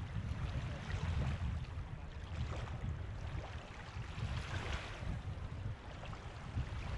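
Small waves of a calm sea lapping and washing up the sand at the water's edge, the hiss of the wash swelling about four and a half seconds in, over a steady low rumble.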